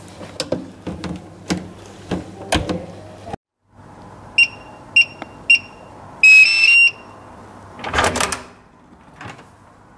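Hands clicking and tapping at an electronic keypad door lock, then three short key beeps about half a second apart and a quick chime of tones rising in pitch, followed by a clunk of the lock about eight seconds in.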